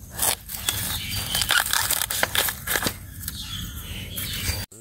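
Dry bamboo leaves and papery culm sheaths crunching and crackling in quick, irregular snaps as the bamboo clump is pushed through. The sound cuts off suddenly near the end.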